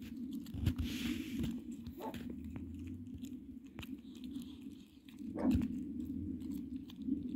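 A bear cub eating soft food off a plastic plate: chewing and biting with many small clicks, and one louder knock about five and a half seconds in.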